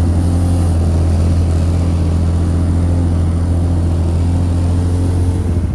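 Sharmax SN-280 snowmobile engine running steadily at a constant cruising pace, heard from on board while riding.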